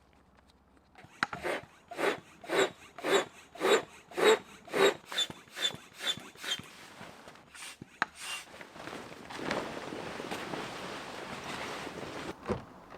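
A run of about eleven rhythmic scraping, rubbing strokes, roughly two a second, each with a faint squeak. After a short pause comes a steady rustling hiss of a few seconds.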